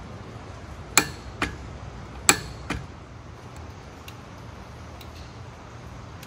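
Sharp metal clicks from hand tools working the bolts of a motorcycle's primary drive: two pairs of clicks, the first of each pair the louder, then a few faint ticks over a low steady hum.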